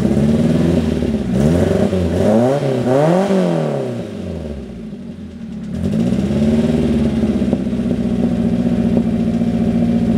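Peugeot 205 GTI's 1.9-litre four-cylinder engine, running on a 40 mm Weber carburettor kit through a straight-pipe exhaust, idling and then revved in several quick throttle blips. The revs fall away, the sound dips briefly, and it settles back to a steady idle for the rest of the time.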